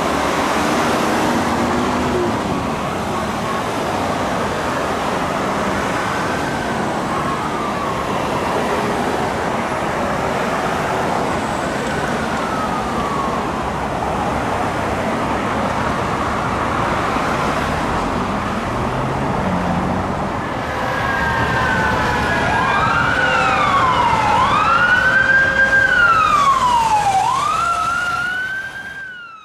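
Fire truck siren wailing in rising and falling sweeps over heavy engine and road noise. The siren is faint at first and grows loud in the last several seconds before cutting off suddenly.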